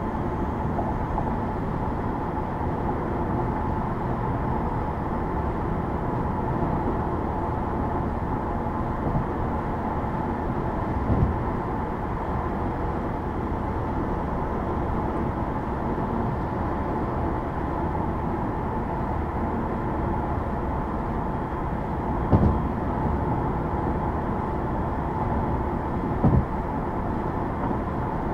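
A car driving on the highway: steady road and tyre noise, with a few short thumps, the loudest about two-thirds of the way through.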